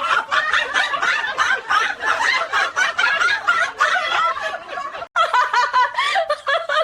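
People laughing hard in a rapid, unbroken run of laughs, with a brief break about five seconds in.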